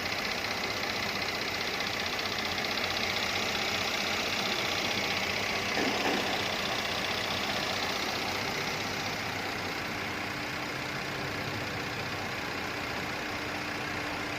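V6 car engine idling steadily. A faint steady tone joins about ten seconds in.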